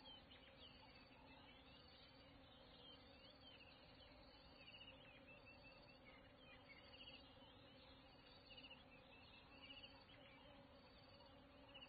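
Near silence: faint outdoor natural ambience with short, high chirps repeating every second or two over a steady low background.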